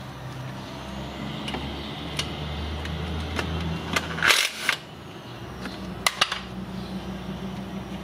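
Cordless impact wrench run in one short burst about four seconds in to loosen a timing-chain guide bolt, then two quick blips of the trigger a couple of seconds later.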